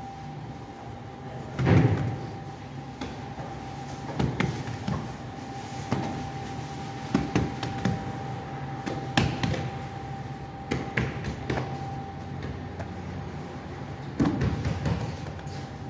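Scattered knocks and clatter of metal baking trays being handled and set down, the loudest about two seconds in. Under them runs a steady low hum of bakery machinery with a thin whine that stops about three quarters of the way through.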